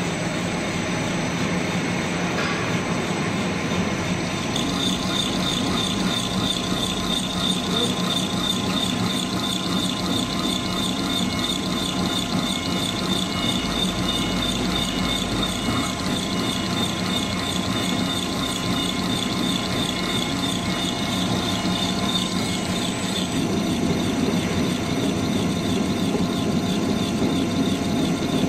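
Twin-screw snack extruder line running: a steady mechanical drone of motors and machinery with a low hum and several steady tones. A high, rapid pulsing joins about four seconds in and stops a few seconds before the end.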